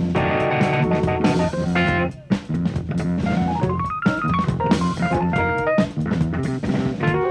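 Jazz-fusion band playing live: drum kit and bass under held chords, with a quick rising run of notes about three seconds in.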